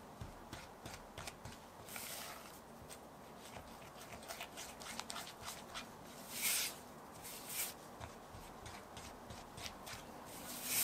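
Silicone spatula stirring dry flour and cocoa powder in a glass bowl: irregular soft scrapes and light taps against the glass, with a few louder swishes through the powder, about 2, 6.5 and 7.5 seconds in.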